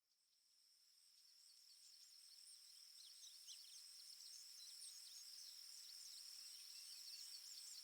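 Faint forest ambience fading in from silence: a steady high cricket trill with many short bird chirps over it, thickest in the middle.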